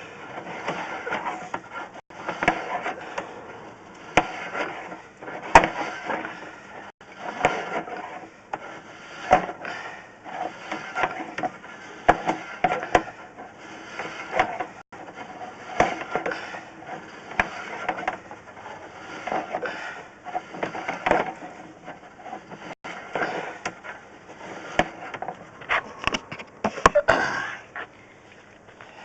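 Drain inspection camera on its push rod being shoved along a drain pipe: repeated scraping and rubbing in pushes every second or two, with sharp knocks as the camera head bumps along the pipe.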